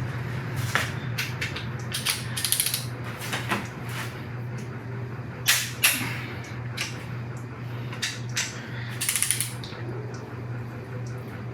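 Ratchet wrench clicking in two short, fast runs as it is swung back between pulls on the bolts of a 5.3 L V8 being torqued, with scattered metal clicks and two sharper knocks in the middle. A steady low hum runs underneath.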